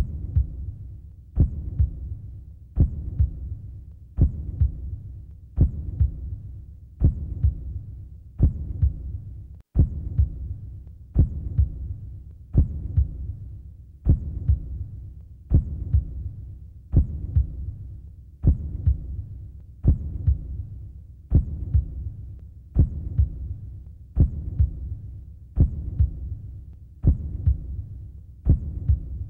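A slow, steady low thump repeating about every one and a half seconds, each beat with a short fading tail, like a heartbeat pulse in a soundtrack. There is a momentary break about ten seconds in.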